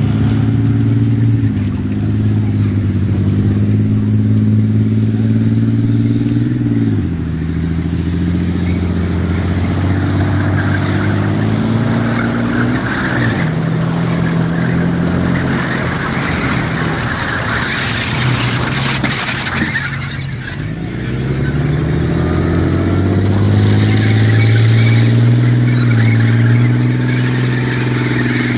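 Challenger 1 main battle tank's Condor V12 diesel engine running under load as the tank drives. The engine note falls about a quarter of the way in and again near the middle, then climbs steadily over the last several seconds with a rising whine above it as the tank accelerates.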